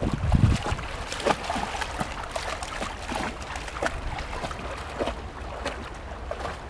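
A Bouvier des Flandres wading through a shallow river, its legs splashing over a steady rush of flowing water, with irregular sharp splashes. A low wind rumble on the microphone in the first half-second.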